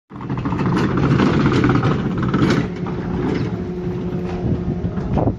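Chairlift station machinery running: a steady mechanical rumble with a low hum as a chair moves through the luge-cart loading area.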